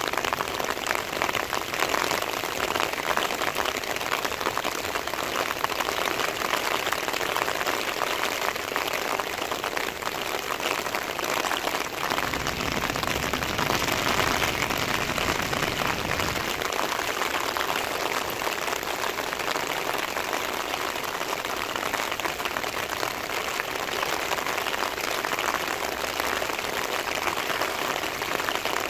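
Heavy rain falling on the road and the waiting cars, a steady hiss. A low rumble joins it for a few seconds about halfway through.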